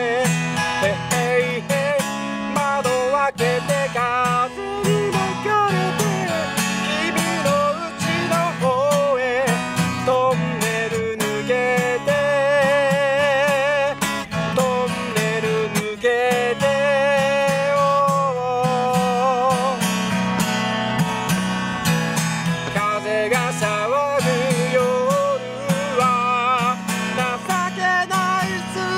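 A man singing with vibrato to his own strummed acoustic guitar, a solo song with a steady strumming rhythm and long held notes.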